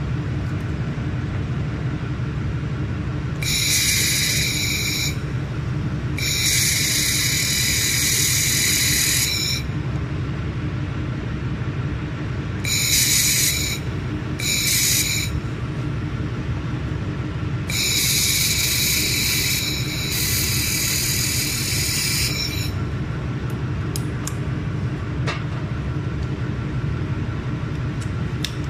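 Handheld 1 kW laser welder firing in five separate bursts of high-pitched hissing buzz as it welds stainless steel sheet. The last burst is the longest, about five seconds. Under it runs a steady low machine hum, and a few light clicks come near the end.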